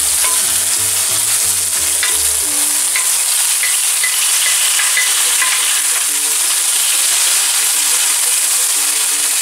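Oven-roasted cherry tomatoes and their oil hitting a hot frying pan of garlic and olive oil, sizzling steadily, with a few light clicks of a wooden spoon pushing them in.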